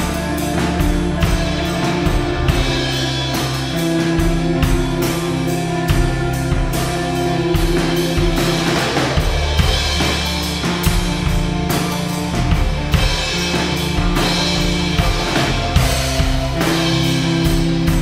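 Rock band playing live, the drum kit keeping a steady beat under held low notes that change every second or two.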